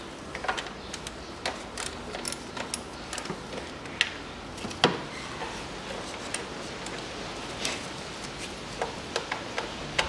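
Irregular light clicks and knocks of plastic engine parts and clips being handled by gloved hands at the engine's upper timing-belt cover, with two sharper knocks about four and five seconds in.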